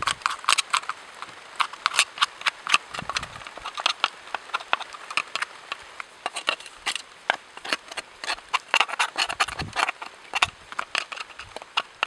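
Quick, irregular clicks and scrapes of a metal tool and hand working on a chainsaw's clutch side cover and sprocket area, which are caked with sawdust and oil.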